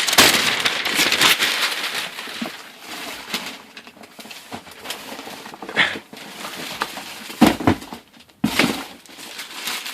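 Wrapping paper and packaging crinkling and tearing as a gift box is unwrapped: a dense rustle for the first couple of seconds, then scattered crackles and a few louder knocks.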